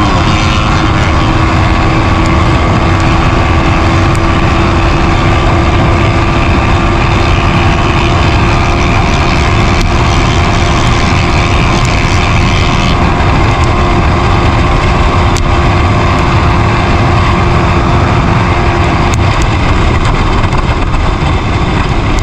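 Honda Winner 150 motorcycle's modified single-cylinder engine running steadily at cruising speed. Heavy wind rush over the on-bike microphone covers it.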